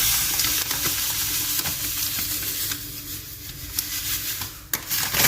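Granulated sugar poured from a cup into a pot, a steady grainy hiss that breaks off near the end and then starts again.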